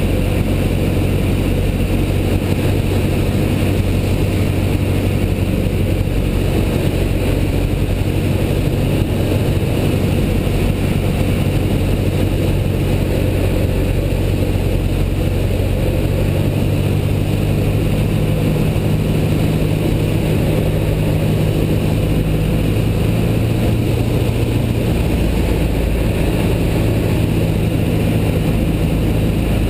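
Piston engine and propeller of a single-engine light aircraft heard from inside the cockpit in flight, a steady loud drone. Its pitch rises slightly about halfway through and again a little later.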